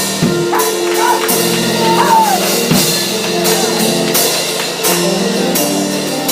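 Live church music: held keyboard or organ chords over a drum kit, with cymbal strokes at an even beat.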